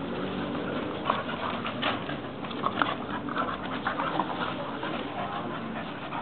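Two American Pit Bull Terriers playing close together, panting and scuffling, with a cluster of short, sharp sounds between about one and four seconds in.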